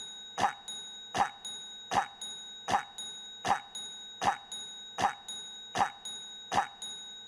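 A short cough sound effect looped over and over, one cough about every three-quarters of a second, with faint steady high tones underneath.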